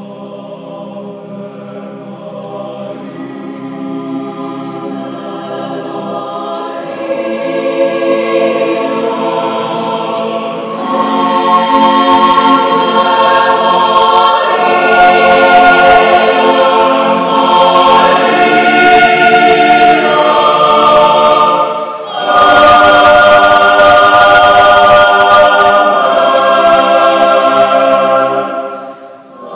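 Outro music: a choir singing long held chords, swelling from soft to loud over the first dozen seconds, dipping briefly about two-thirds of the way through, then full again before fading near the end.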